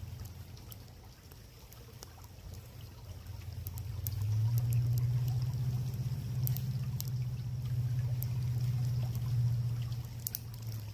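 Wood fire crackling with scattered sharp pops, over flowing creek water and a steady low rumble that swells about four seconds in.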